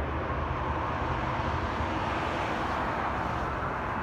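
Steady jet engine noise from a Boeing 737-900ER's CFM56 turbofans as the airliner rolls out on the runway after landing, a constant rushing roar with a low rumble beneath it.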